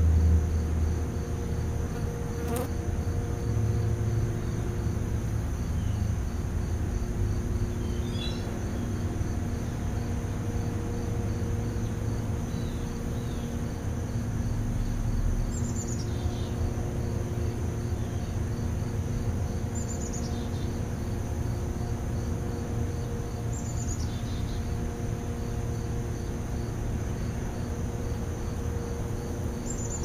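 Insects buzzing and chirping steadily over a low hum. A single sharp click comes about two seconds in, and four short high bird chirps, each falling in pitch, come in the second half.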